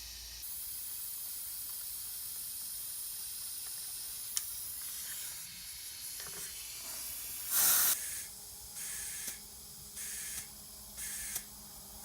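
Compressed air hissing from a shop air line's tire inflator as a car tire is filled to its specified pressure: a steady hiss, a louder burst about seven and a half seconds in, then several short spurts.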